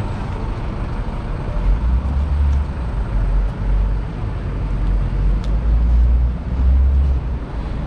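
Low rumble of street traffic on a town street, swelling twice.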